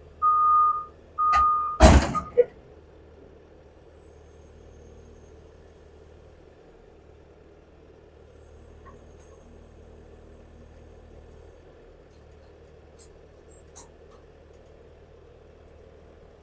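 A vehicle's reversing alarm beeping, steady single-tone beeps about once a second, ending with a loud thunk about two seconds in. After that a low engine hum runs on with a couple of faint knocks near the end.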